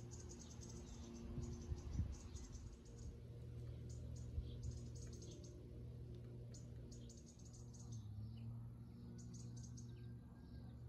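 High-pitched chirping in short trains of rapid ticks, a burst about every second, over a low steady hum, with a soft thump about two seconds in.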